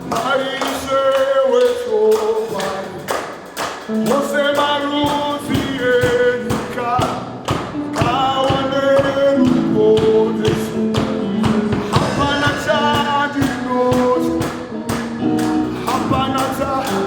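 Live gospel band playing with singing voices over steady, dense percussion.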